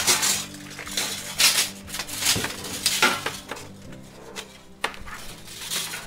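A steel tape measure and a power cord being handled as the tape is pulled out along the cord: a few irregular clinks, knocks and rattles, over faint background music.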